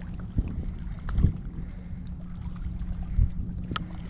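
Bass boat afloat with a steady low hum aboard, broken by a few dull thumps on the hull or deck about half a second, a second, and three seconds in, and a sharp click near the end.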